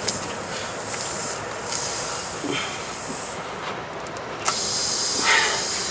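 Hissing air from a puncture in a van tire. About four and a half seconds in the hiss jumps abruptly louder and then holds steady, as air rushes out of the hole where the screw was lodged.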